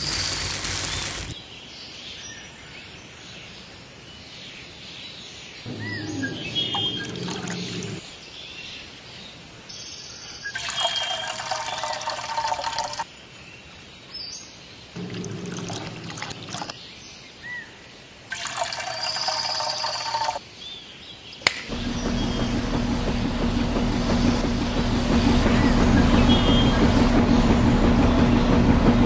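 Short separate spells of water pouring and trickling, with small bird chirps. About two-thirds of the way in, a small battery-powered electric motor in a miniature cement mixer switches on and runs with a steady hum, which is the loudest sound.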